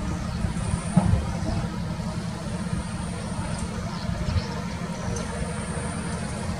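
Doosan excavator's diesel engine running steadily with a low rumble, with a brief thump about a second in.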